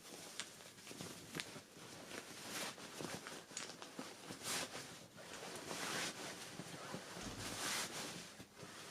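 Irregular rustling with several small clicks and knocks, like things being handled and moved about in a room.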